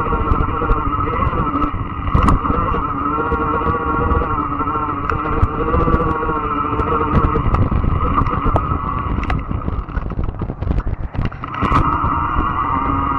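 Fat-tire electric bike riding through brush: a steady whine from the motor and tyres over wind rumble on the microphone, with scattered ticks and snaps. The whine drops away for a moment near the end, then comes back.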